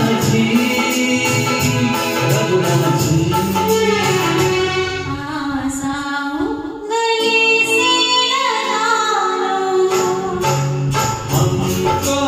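A man and a woman singing a Hindi film-song duet in turn, a man's voice first, then a woman's, then the man again, over instrumental accompaniment. The accompaniment's beat thins out in the middle and comes back near the end.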